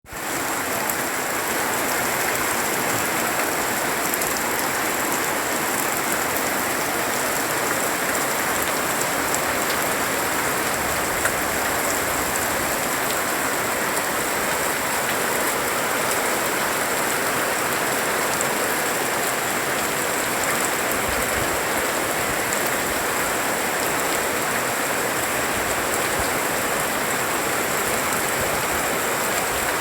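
Heavy rain pouring steadily onto surfaces, an even, unbroken hiss.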